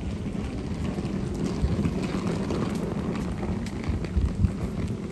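Wind buffeting the microphone: a steady low rumble, with a few stronger gusts about four seconds in.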